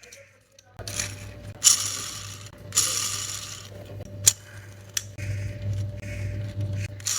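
3D-printed plastic gyro-and-gear fidget spinner being worked by hand. Its plastic gears rattle and whir in several short bursts, with sharp clicks in between.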